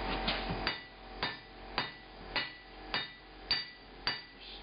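Blacksmith's hand hammer striking hot steel on an anvil in steady blows, nearly two a second, each with a short metallic ring. The cross peen is drawing out (stretching) the steel.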